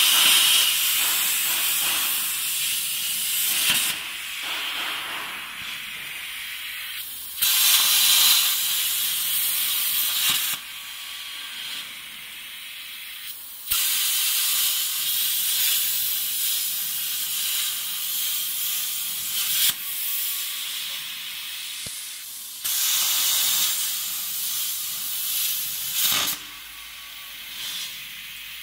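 CNC plasma cutter torch cutting metal plate: the plasma arc gives a loud, high-pitched hiss. The hiss cuts in and out abruptly several times as the torch finishes one cut and starts the next, with a quieter hiss in between.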